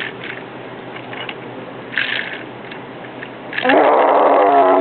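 A person's voice making a long, wavering moo for the toy tractor, starting about three and a half seconds in and sliding down in pitch. Before it, only faint rustling.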